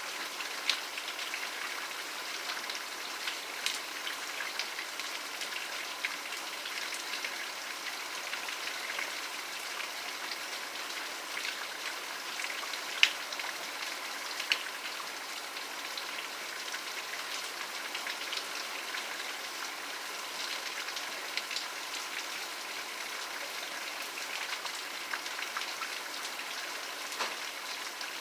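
Steady rain, an even hiss with individual drops ticking sharply now and then, the loudest one about halfway through.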